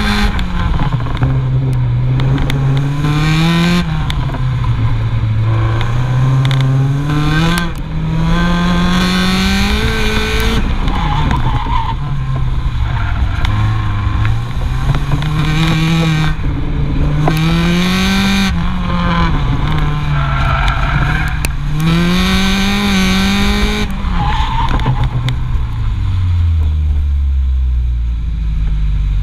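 Car engine revving up and easing off over and over through an autocross run, heard from beneath the car over tyre and road roar, with brief tyre squeal a few times. Near the end the engine drops to a low, steady run as the car slows.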